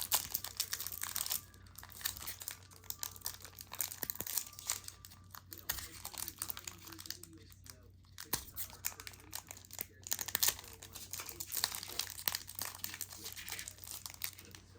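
Foil Pokémon booster pack wrapper being torn open and crinkled by hand, in irregular crackling rustles, loudest at the start.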